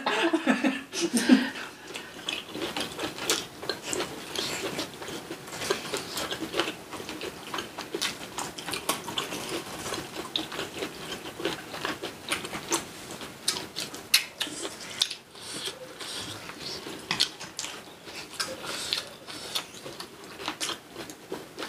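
Eating sounds from people chewing braised pork back ribs and kimchi: irregular wet smacks and sharp clicks, several a second.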